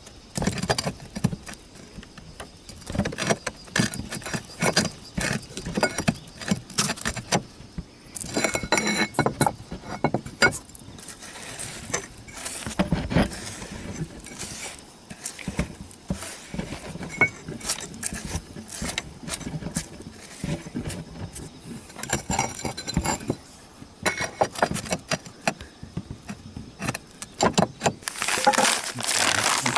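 Clay roof tiles clinking and knocking irregularly as they are handled and fitted into place. A steady rushing noise comes in near the end.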